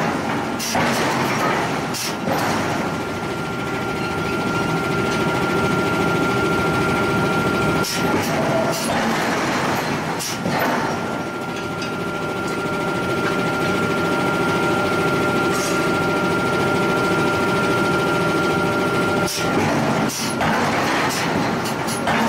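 Forge shop machinery running steadily with a held high whine over a lower hum, broken a few times by short sharp metal clanks.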